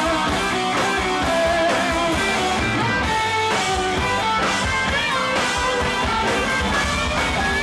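Live rock band playing, with an electric lead guitar line out front over the band.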